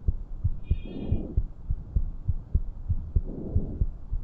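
Stethoscope recording of normal vesicular breath sounds: soft, low breath noise swelling with each inhalation, about twice, over a steady run of low heartbeat thumps.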